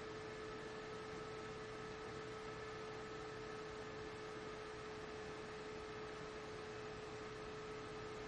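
Low, steady electrical hum: one constant mid-pitched tone with fainter higher tones above it, over an even hiss.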